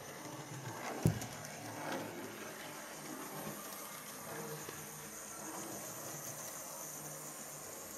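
Hornby Rocket OO-gauge model locomotive running on its track: a faint, steady running noise of its small motor and wheels on the rails, with a single sharp click about a second in.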